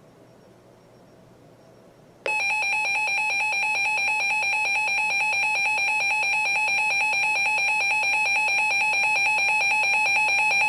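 Emergency Alert System attention signal: after about two seconds of faint hiss, a loud, steady, piercing two-tone alarm tone starts abruptly and holds without change. It announces an emergency broadcast alert.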